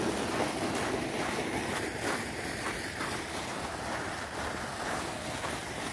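Footsteps crunching in fresh snow, about two a second, over a steady rushing hiss.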